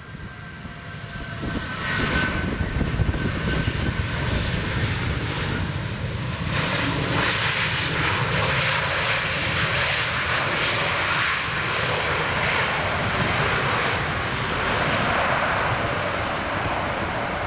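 Airbus A321neo's twin turbofan jet engines on its landing roll. The engine roar swells about two seconds in, grows louder from about six seconds in, and then holds steady.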